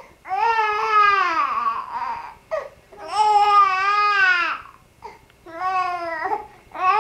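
Young baby's high-pitched, drawn-out cries, a series of about four wails, each a second or more long, with short gaps between them.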